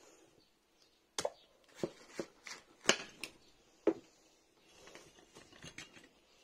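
Sharp clicks and knocks of handling as the halves of a freshly cut watermelon are moved about on a cloth-covered table, about seven in quick succession and then softer ones.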